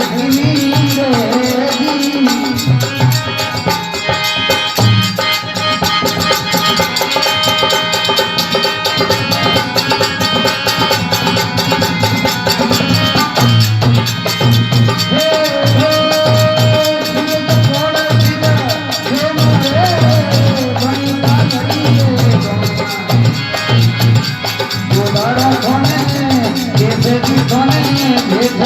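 Marwari devotional folk song (bhajan) with a steady beat of drums and rattles. A voice sings at the start and comes back near the end, with an instrumental stretch between that includes one held note.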